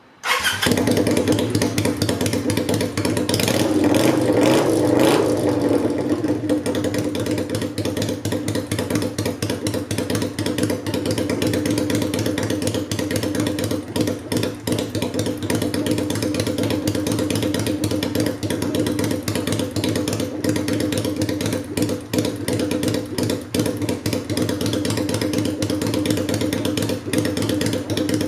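Kawasaki Vulcan 400 Classic's V-twin running through a homemade straight-pipe shotgun exhaust with no silencer, on stock carburettor settings with the air filter fitted. It runs louder for a couple of seconds around four to five seconds in, then settles to a steady idle.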